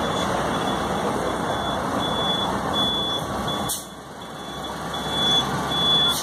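Tourist road train running along: steady engine and rolling noise with a short, high electronic beep repeating a little faster than once a second. A click about two-thirds of the way in, after which the running noise drops briefly and builds back up.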